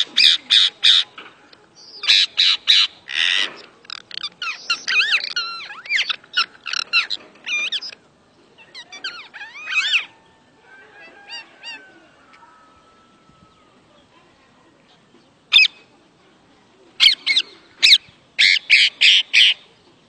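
Green parakeets screeching: runs of rapid, harsh shrieks several to a second, in loud bouts that fall to a few softer notes midway and then pick up again near the end.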